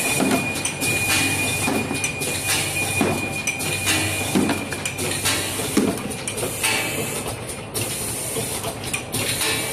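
Soap overwrapping machine running, a steady mechanical clatter with a low thump repeating about every second and a half as it wraps bars in transparent film. A thin high whine runs alongside and stops about two-thirds of the way through.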